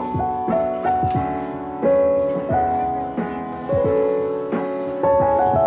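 Background piano music: single notes stepping from pitch to pitch over held chords.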